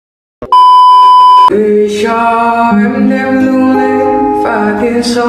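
A brief silence, then a loud steady electronic beep lasting about a second, followed by background music with sustained notes and singing.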